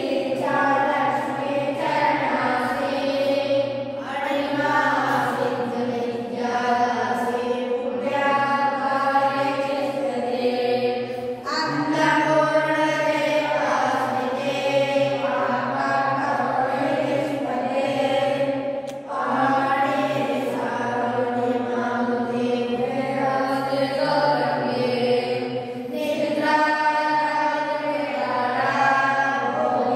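A group of boys chanting a devotional prayer together in long, held phrases, with a brief breath pause about every seven seconds.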